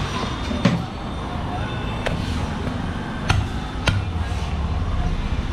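Butcher's cleaver chopping a goat leg on a wooden log block: four sharp, separate strikes, over a steady low rumble of street traffic.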